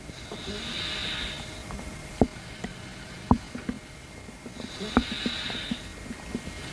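Close-miked stomach noises: a few sharp gurgling pops over two long hissing breaths, about four seconds apart.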